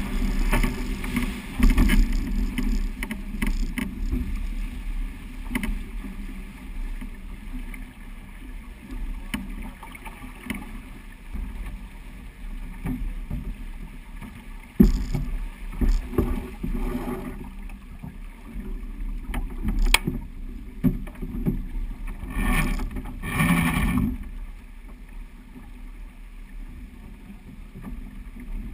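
Rushing wind and water noise on a sailing yacht under way in a stiff breeze, with scattered sharp knocks and a louder surge of rushing noise about three-quarters of the way through.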